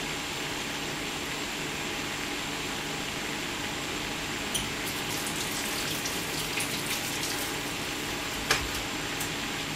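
Karaage deep-frying in a wide pan of oil: a steady sizzle with crackling, and a few sharp clicks about halfway through and near the end.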